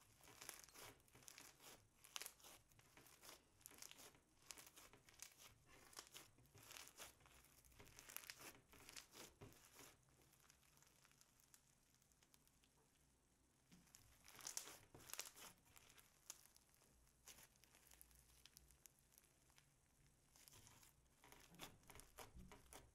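Slime full of foam beads being kneaded and stretched by hand: faint runs of quick crackles and crunchy tearing sounds, quieter for a few seconds about halfway through before the crackling picks up again.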